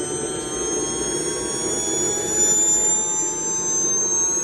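Linton/ERCP 80N model turbojet spooling up during its automatic restart, a high whine slowly rising in pitch over a steady rushing noise.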